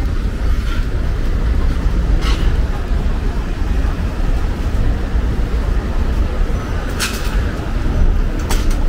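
Busy city street: a steady low rumble of road traffic, with a few sharp clicks or knocks about two seconds in and twice near the end.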